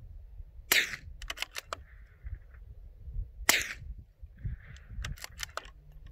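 Two suppressed shots, about three seconds apart, from a CZ 457 Jaguar .22 LR bolt-action rifle fitted with a Dead Air Mask suppressor, firing supersonic Federal 36-grain bulk rounds at 1280 fps. After each shot comes a quick run of metallic clicks as the bolt is worked.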